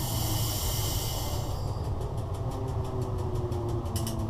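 Running noise inside the cab of a BDZ class 45 locomotive on the move: a steady low hum, with a loud hiss for about the first second and a half and a fast regular ticking.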